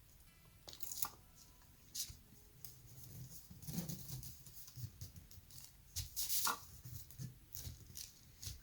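Hands working sticker-making materials: irregular rustling, crinkling and light clicks, with a louder scrape-like rustle about four seconds in and again around six and a half seconds.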